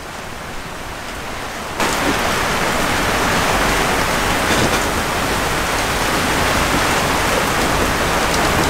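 Steady rush of rain and strong wind over rough sea on the open deck of a sailing yacht in heavy weather, getting louder about two seconds in.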